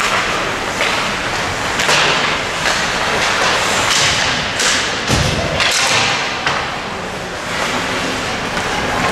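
Ice hockey play on the rink: skates scraping and carving the ice and sticks on the puck in repeated sharp hisses, with a heavy thud about five seconds in.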